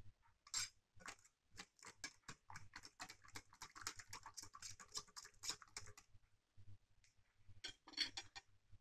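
Wire whisk stirring a thin flour batter in a ceramic bowl, the wires clicking quickly and faintly against the bowl for about six seconds, then stopping, with a louder clatter near the end.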